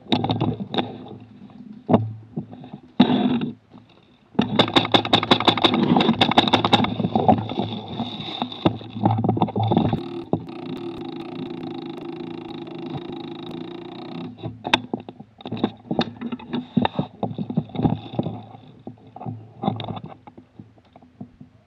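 Airsoft gun firing, heard close up through a camera mounted on its rail: a rapid burst of evenly spaced shots about four seconds in, with shorter bursts before it. A steady humming rattle follows, then scattered clicks and knocks.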